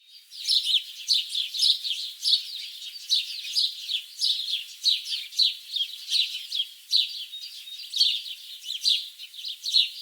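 Birds chirping: a dense, continuous run of short, high, falling chirps, the loudest about two a second. It starts and stops abruptly.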